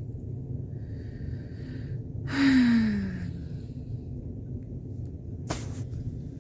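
A person sighing once, loudly and breathily, with a falling voiced tone about two and a half seconds in, and taking one short, sharp breath near the end, over a steady low room hum.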